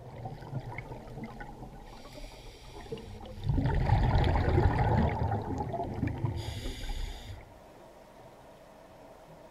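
Scuba diver breathing through a regulator, heard through an underwater camera housing: a short hiss, then a loud, bubbling rush of exhaled air lasting about four seconds that stops suddenly.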